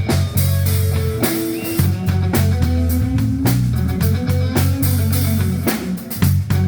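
Live band playing an instrumental passage of rock music: electric guitar, a prominent bass line and drum kit, with no vocals.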